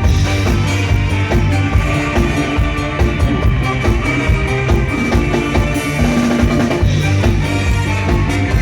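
Isan-style Thai music with a drum-kit beat under sustained instrument tones.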